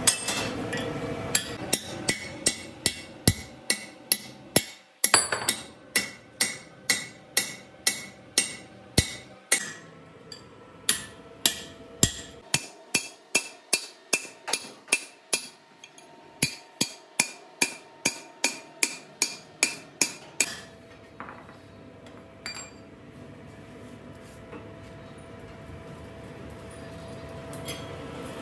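Hammer blows on a steel punch driving a broken stud out of a heavy wheel hub's flange: sharp, ringing metal-on-metal strikes about two a second, with short pauses. They stop about two-thirds of the way through, and a faint steady hum is left.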